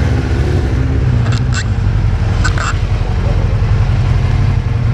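Sport-bike engines idling, a steady low rumble. Two brief high-pitched squeaks cut in, about a second and a half and two and a half seconds in.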